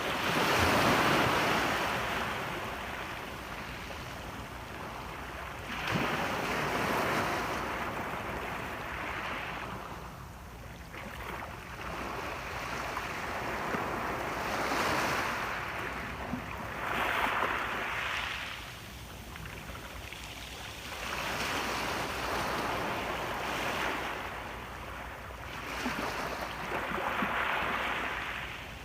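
Sea waves breaking on a shore and washing back, the sound swelling and fading in irregular surges every few seconds, loudest just after the start.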